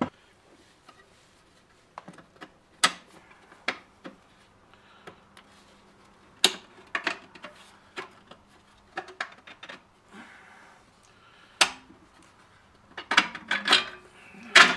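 Scattered metal clicks, clinks and scrapes of parts being worked loose inside a GM 4L80e automatic transmission case as the low/reverse band is pulled out, which is hard to get out because the band is warped. A busier run of clatter comes near the end.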